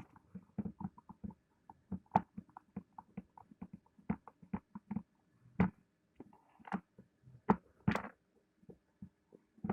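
Irregular small clicks and taps of hand tools and plastic drill-housing parts being handled during reassembly of an electric drill, a few per second, with a handful of louder knocks in the second half. The drill motor is not running.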